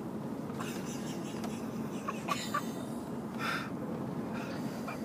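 A person's short breathy bursts, like snorts or stifled coughs, four times at uneven spacing, over the steady low rumble of a car cabin.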